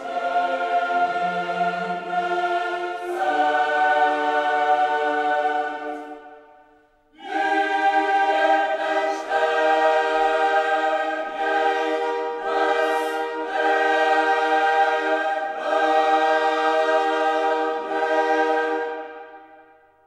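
A choir singing slow, held chords in two phrases. The first fades away about six seconds in, and the second starts about a second later and fades out near the end.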